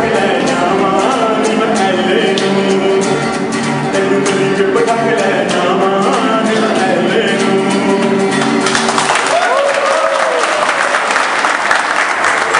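Men singing to a strummed acoustic guitar; about nine seconds in the song gives way to a room full of people clapping, with a few whoops.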